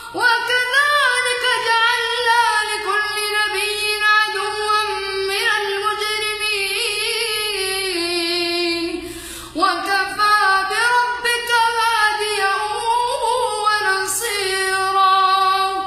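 A boy reciting the Quran in a melodic chant, one voice holding long notes with ornamented turns. He stops briefly for a breath about halfway through, then goes on.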